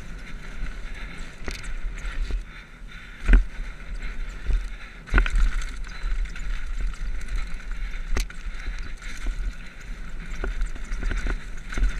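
Mountain bike descending a dirt forest singletrack at speed: steady tyre noise on the dirt and wind rumble on the microphone, broken by sharp knocks and rattles as the bike hits roots and rocks, the loudest a little over three seconds in and again about five seconds in.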